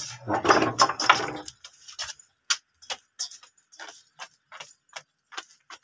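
A loud rustle for about a second and a half, then light, sharp footsteps of a toddler and his mother walking, about three steps a second.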